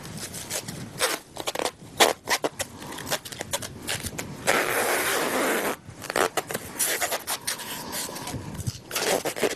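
Roll of plastic food cling film unwinding and stretching around a leg, crackling and rasping in short pulls, with one longer, steady pull about four and a half seconds in that lasts over a second.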